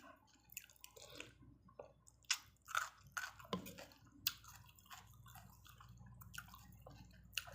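Close-up mouth sounds of someone eating pork noodle soup: a string of short, irregular wet smacks and clicks from chewing.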